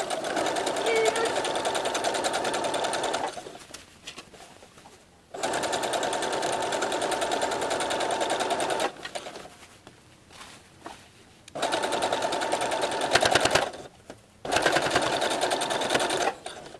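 Brother XR3140 computerized sewing machine stitching a zipper into a skirt seam, running in four spurts of two to four seconds each with short pauses between them.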